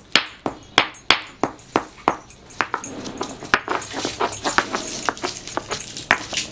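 Stone pestle pounding cumin seeds in a stone mortar: sharp stone-on-stone knocks about three a second, which come quicker from about halfway, mixed with the crunch of the seeds being crushed to powder.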